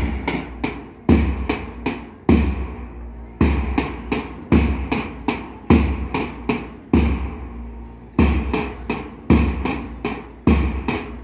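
A repeating drum beat: a deep thump about once a second, each followed by two or three lighter, sharper hits, keeping a steady time.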